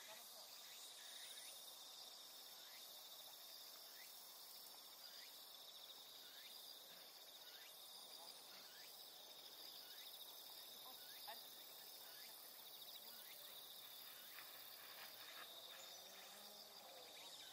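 Faint, steady high-pitched trilling of insects, such as crickets, in a grassy green space.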